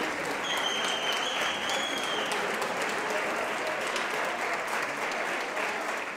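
Audience applause, steady and dense, at the end of an orchestral performance. A thin, high, steady whistle-like tone rises above the clapping for about two seconds near the start.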